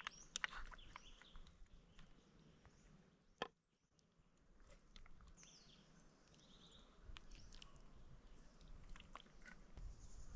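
Near silence with a few faint scattered clicks and ticks. The sharpest click comes a little before the middle, then the sound drops briefly to dead silence.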